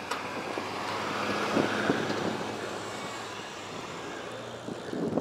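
Pickup truck driving past on a snow-covered road: a low engine hum and tyre noise that swells to a peak about two seconds in, then fades away.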